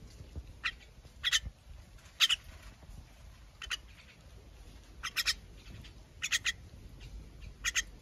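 Young common myna giving short, harsh calls while it feeds, about one a second, some in quick pairs or threes.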